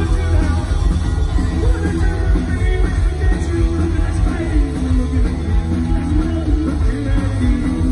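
Punk rock band playing live through a PA: distorted electric guitar, bass and drums, with a singer's voice over them.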